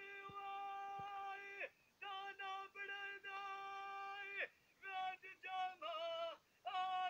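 A man singing Punjabi dholay verses unaccompanied in a high, strained voice: two long held notes of about two seconds each, then shorter phrases.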